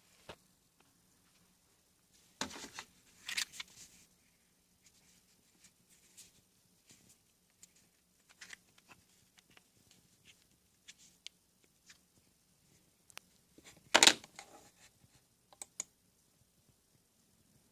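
Computer parts being handled during a PC build: scattered light clicks and rustles, a short clatter about two and a half seconds in, and one louder knock about fourteen seconds in.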